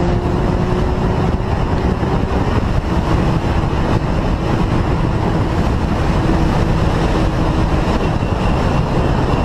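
Motorcycle travelling at high speed: a steady rush of wind over the bike-mounted camera's microphone, with the engine running beneath it at an even pitch.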